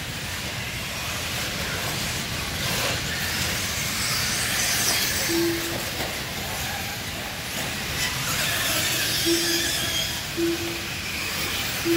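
Several nitro-powered RC truggies racing, their small engines making a steady high-pitched whine that rises and falls as they throttle up and back off. Short single-pitch beeps, typical of the lap-timing system, sound four times in the second half.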